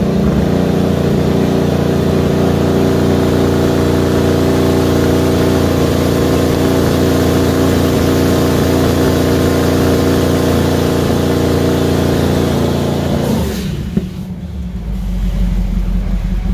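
Twin-turbocharged 347 stroker V8 of a 1967 Mustang held at a steady engine speed under load on a hub dyno during steady-state tuning. About 13.5 seconds in, the load comes off and the engine falls to a quieter, lower note.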